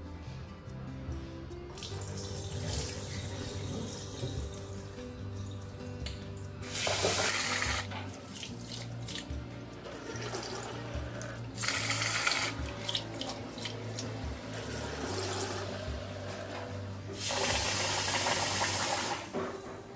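Water sloshing and splashing as grains are rinsed by hand in a glass bowl at a kitchen sink. It comes in three louder spells of pouring, the last near the end from the tap running into the bowl.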